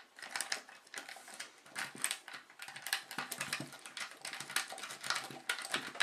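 Paperclip rake scraping in and out of a pin tumbler lock under a paperclip tension wrench, making a fast, irregular run of small clicks and scratches as it works the pins.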